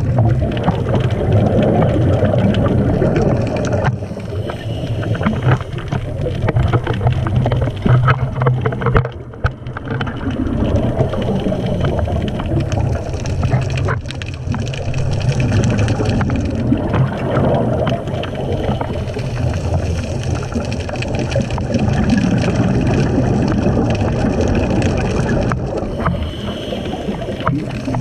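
Underwater sound heard through a diving camera's waterproof housing: a steady low hum with gurgling water and bubble noise that swells and eases every few seconds.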